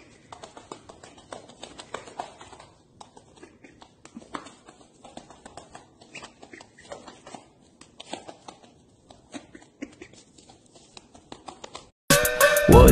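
A goose's feet tapping quickly and irregularly on pavement as it chases a laser dot. Loud music with singing cuts in near the end.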